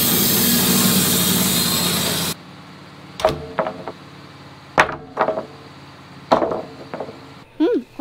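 Wood-Mizer LT15 bandsaw sawmill running steadily as its blade cuts through a log, cut off abruptly about two and a half seconds in. Then sawn wooden boards are knocked down onto a stack, three sharp knocks about a second and a half apart.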